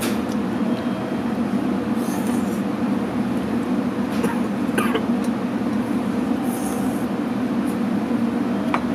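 Steady low hum and rumble of a JR Kyushu 883 series electric train standing at the platform. A few short hissy sounds come through over it.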